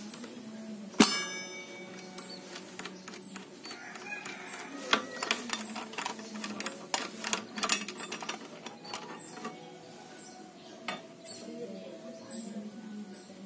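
Saw blade being changed by hand on a miter saw. About a second in there is one sharp metallic clank that rings briefly, then a run of light clicks and taps of steel on the saw's metal parts. A faint steady hum lies underneath.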